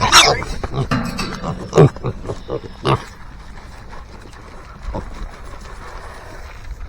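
Kunekune pigs squealing and grunting at feeding time: several short, sharp squeals in the first three seconds, then quieter, with one more cry about five seconds in.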